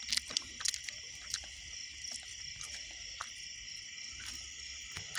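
Night-time chorus of crickets and other insects, a steady high-pitched trilling. A few short sharp clicks come in the first second or so.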